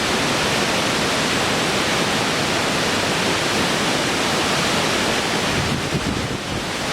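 Steady, even rushing of water. Near the end the hiss thins and an uneven low rumble comes in.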